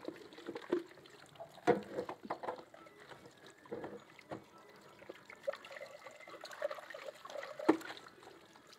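Dishes being washed by hand: water trickling and pouring as a stainless steel pot is rinsed over a basin, with the clatter of dishware and pots, the sharpest knocks about two seconds in and near the end.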